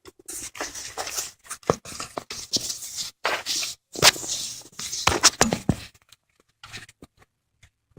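Hand tools being handled while working on the transfer case: irregular clicks, knocks and short scrapes, busiest in the first six seconds and sparse near the end.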